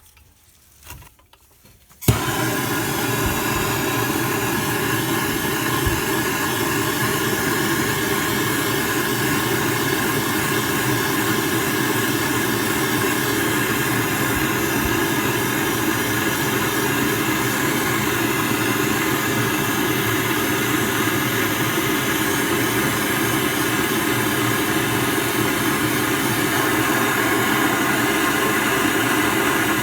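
Handheld gas plumbing torch lit with a sudden start about two seconds in, then burning with a steady, loud hiss as it heats a copper pipe fitting to sweat-solder the joint.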